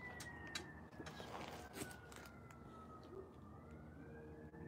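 Faint siren wailing: a single tone sliding slowly down and then back up again, with a few light clicks over it.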